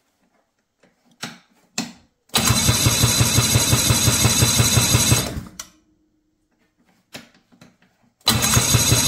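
A 1992 Ski-Doo Mach 1 snowmobile's two-stroke engine cranked over by its electric starter with a compression gauge in one spark-plug hole, in two bursts of about three seconds each with a rapid even chugging rhythm. It is a compression test, and this cylinder, which had water coming out of it, reads only about 100 psi.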